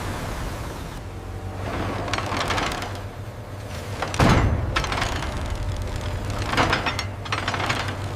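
Mechanical clanks and rattles in several short clusters over a steady low hum, with one loud thump about four seconds in.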